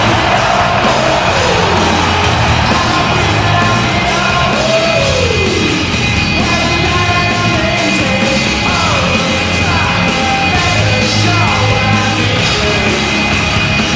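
Loud rock music of a hockey goal celebration, with yelling voices over it.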